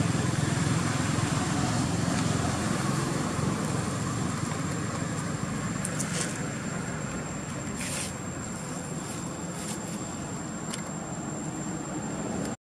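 Road traffic: a passing vehicle's low rumble fades away over the first few seconds, leaving a steady hiss of traffic with a few faint clicks.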